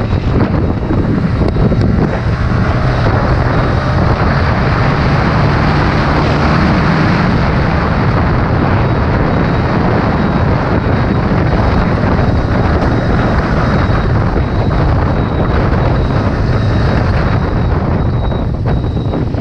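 Wind buffeting a GoPro's microphone at road speed on a moving motorcycle, with the bike's engine and road noise underneath. The noise is loud and steady throughout.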